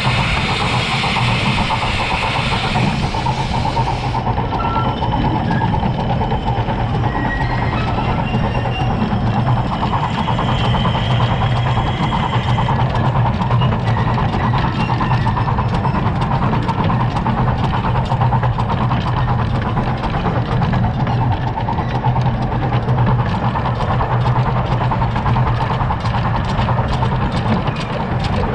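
1920-built Albert Barnes 4-4-2 miniature steam locomotive running along 15-inch gauge track: a steady, loud running rumble with fine clattering of wheels on rail. A high hiss heard at first stops about four seconds in.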